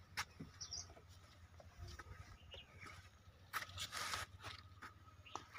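Faint scattered scrapes and clicks, with a louder rustling scrape about four seconds in.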